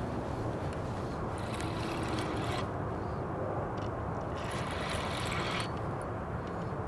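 Fishing reel cranked in two stretches, from about one to two and a half seconds in and again from about four and a half seconds in, as line is wound in against a hooked catfish. A steady low rumble runs underneath.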